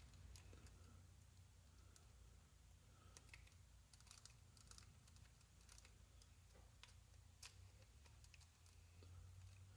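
Near silence with a low steady hum, broken by a few faint, scattered small clicks of a hand tool on the small back plate screws of a nitro RC engine as they are backed out.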